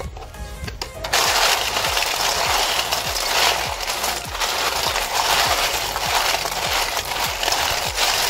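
Handfuls of snail shells scrubbed together with salt in a steel bowl: a loud, dense clattering and grinding of shells that starts about a second in.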